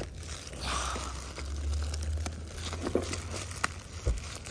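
Clear plastic shrink-wrap crinkling and tearing as it is pulled off a cardboard box by hand, with a few short sharp crackles scattered through.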